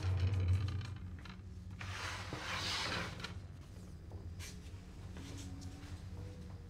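Bedsheet rustling as it is drawn up and settled over a patient in a hospital bed, swelling about two seconds in, over a steady low hum.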